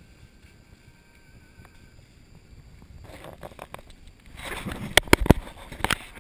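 Water splashing as an elephant wades through a shallow, muddy stream, building up about three seconds in and loudest near the end, with several sharp knocks in the last second and a half.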